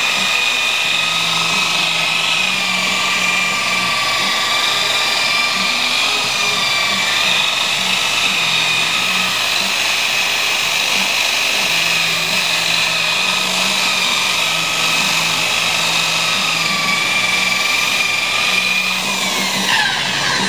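Handheld electric rotary polisher with a buffing pad running at a steady high whine while buffing the metal side of a flatbed deck. The pitch dips slightly now and then as the pad is pressed on. Near the end it is switched off and winds down with a falling whine.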